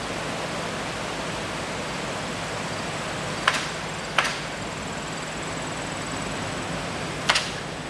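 Steady rushing background noise, broken by three sharp clicks a second or more apart; the last click is doubled.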